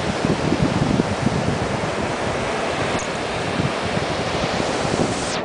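Ocean surf breaking and washing up a sandy beach, a steady hiss that cuts off suddenly near the end, with wind buffeting the microphone.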